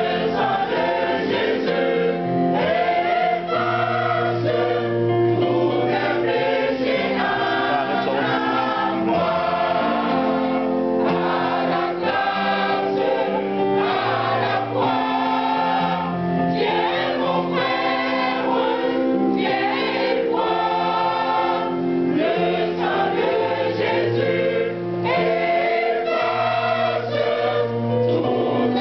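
Church choir singing a gospel hymn in full harmony, with held chords over a sustained low bass line and no break.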